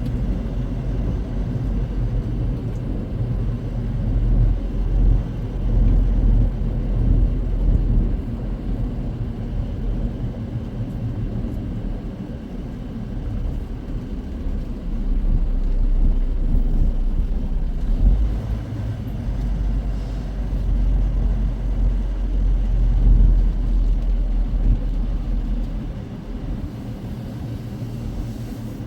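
Semi truck's diesel engine and drivetrain heard from inside the cab: a steady low rumble that swells louder at times and eases off near the end.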